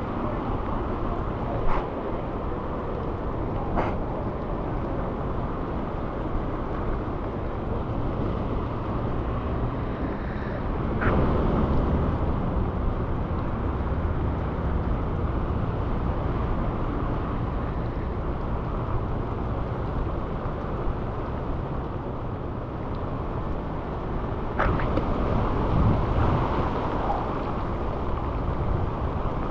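Steady wind and road noise from riding a bicycle through wet city streets, with a few brief sharp clicks.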